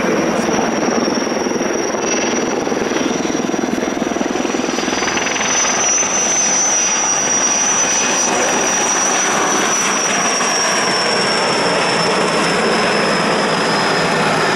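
Sikorsky S-64 Air-Crane (CH-54B) heavy-lift helicopter in flight: a steady, loud rotor and twin-turboshaft engine noise with a high turbine whine that drifts up a little partway through and eases back down.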